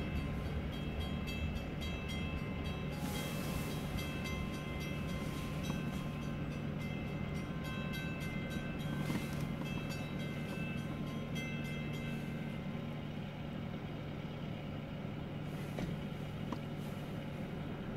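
CN freight train rolling past: a steady low rumble, with intermittent high-pitched squealing tones and a few sharp knocks.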